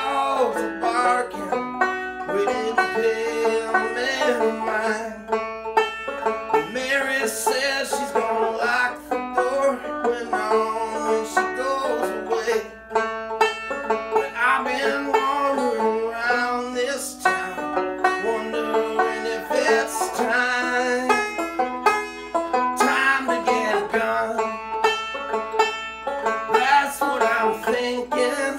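Gold Tone four-string banjo played solo, a continuous run of bright plucked notes and chords in a country-style tune.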